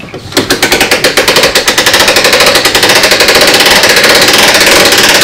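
Hand winch on a homemade wooden lift for 50–60 litre fermentation buckets being cranked, its ratchet clicking rapidly and evenly. The clicking starts about half a second in.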